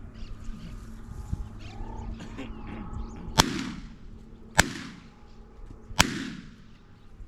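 Shotgun fired three times in quick succession, the shots about a second and a half apart, each trailing off in a short echo.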